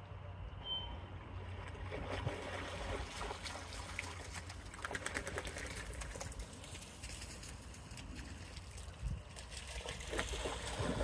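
Water splashing and trickling as a dog paddles while swimming, with many small splashes through the middle and end. A low rumble runs underneath.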